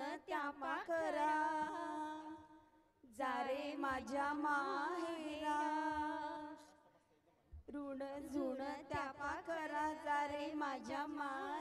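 A woman's voice singing unaccompanied in three long phrases, with held and wavering notes and short breaths between them.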